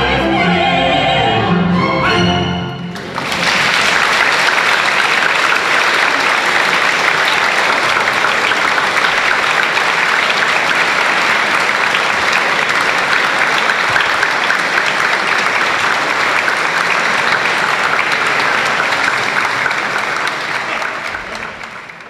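A small orchestra and two operetta singers finish their final bars about three seconds in, and an audience breaks straight into steady applause that fades out near the end.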